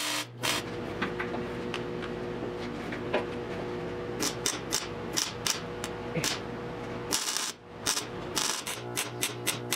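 MIG welder tack-welding the steel of a 1974 Triumph TR6's rear wheel well in short bursts of arc noise. There are a few bursts at the start, a run of short ones in the middle, one longer burst a little after seven seconds, and another run of short bursts near the end.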